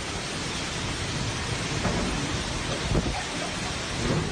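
Torrential storm rain pouring down as a dense, steady hiss, with low rumbles swelling about two and three seconds in.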